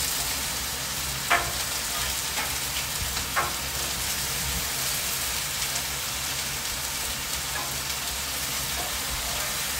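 Chicken, bacon, mushrooms and onions frying with a steady sizzle on a Blackstone steel flat-top griddle, with a few short clicks of a metal spatula against the griddle, the sharpest about a second in and again about three seconds in.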